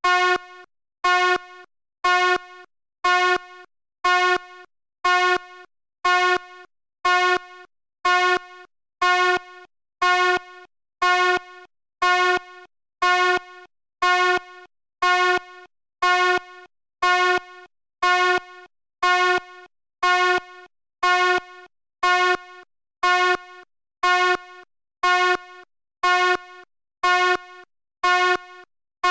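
Fire alarm sounding in steady repeated pulses of a harsh pitched tone, about one a second, each pulse starting loud and dropping off before the next.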